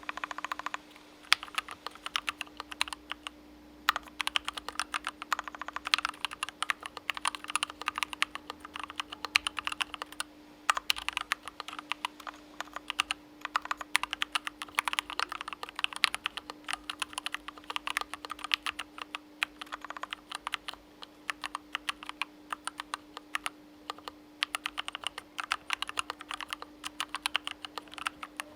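Continuous typing on a KBDfans Mountain split ergonomic mechanical keyboard (aluminum top-mount case and aluminum plate): a fast, uneven run of keystroke clacks with brief pauses about 4 and 10 seconds in. A faint steady hum sits underneath.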